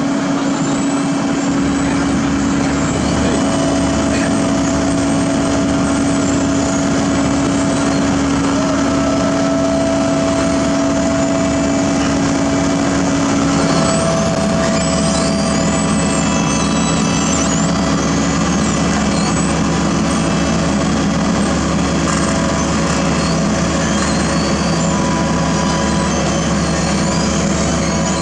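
Heavy diesel construction machinery running steadily, with a steady engine hum that shifts to a lower pitch about halfway through.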